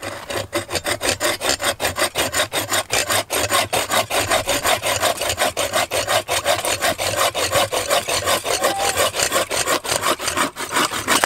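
Collapsible buck saw cutting through a green branch with fast, even back-and-forth strokes, several a second. The sawing stops abruptly near the end as the blade goes through the branch.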